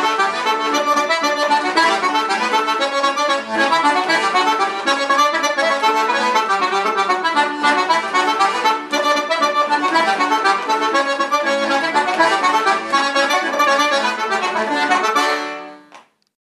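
Small button accordion, freshly tuned, playing a traditional polka with reedy melody and chords in a steady dance rhythm. The playing stops shortly before the end.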